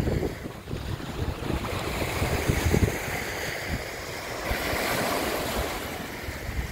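Wind gusting on the microphone, easing after about halfway, over the steady rush of small waves on the shore.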